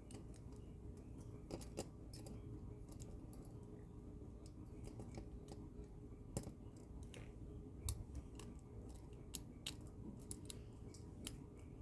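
Lock pick and tension wrench working the pins of a lock: faint, irregular small metallic clicks and ticks, a few a second.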